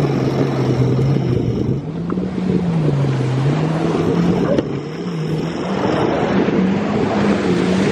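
Engine running with a low note that rises and falls as the throttle changes, over a dense rumble.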